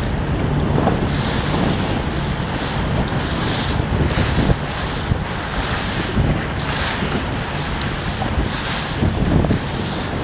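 Wind buffeting the microphone over choppy water, with small waves splashing and swishing again and again.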